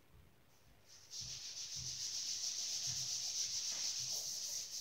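Eraser wiping a chalkboard: a steady dry rubbing hiss that starts about a second in.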